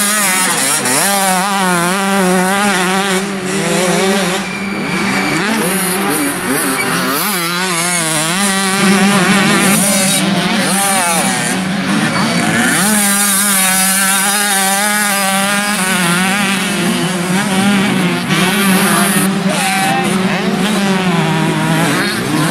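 Small two-stroke youth motocross bikes running on the track, their engines revving up and falling back again and again through the corners, several at once over a steady engine drone.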